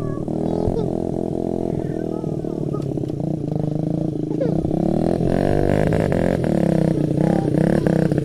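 Small Honda CRF50 dirt bike engine running, its pitch rising and falling with the throttle, and getting louder about five seconds in.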